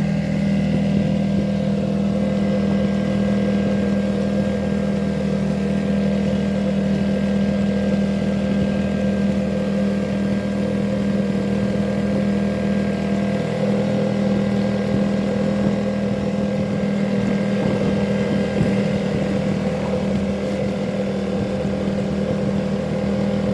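Small 4-horsepower outboard motor running steadily at constant throttle, pushing a small boat along.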